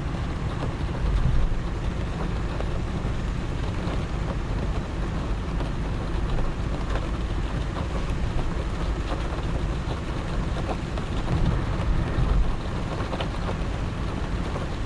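Rain falling on a moving car, heard from inside the cabin: a steady low rumble of the car on the road under a hiss of rain, with scattered drops ticking. The rumble swells louder briefly about a second in and again near the end.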